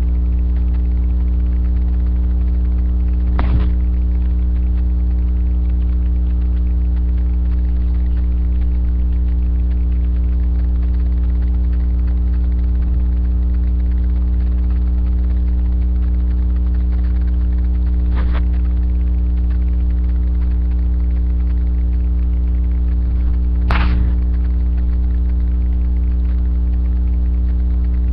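Loud, steady low electrical hum with a few fainter steady tones stacked above it, the kind picked up by a webcam's recording chain. Three brief knocks break in: about three and a half seconds in, about eighteen seconds in, and once more at about twenty-four seconds.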